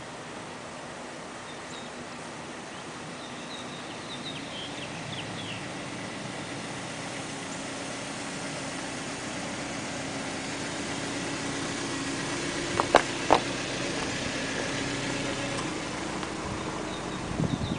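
A motor vehicle's engine running steadily, its hum growing louder toward the middle. Two sharp knocks come about thirteen seconds in, and a few short bird chirps about four seconds in.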